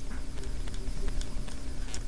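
Small, scattered clicks and taps of plastic toy-kit pieces being handled and fitted, over a steady low hum.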